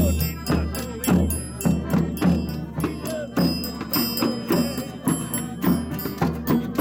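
Portuguese folk music played on a triangle (ferrinhos) and a drum: a steady beat of about two strokes a second, the triangle ringing over the drum's thumps.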